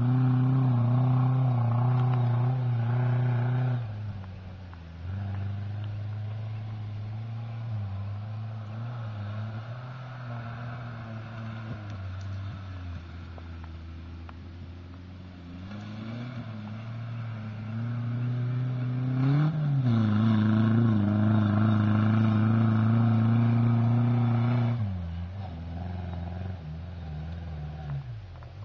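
Off-road vehicle engine running and revving: loud for the first few seconds, dropping to a lower, quieter run, then climbing again about two-thirds of the way through to a loud stretch before easing off near the end.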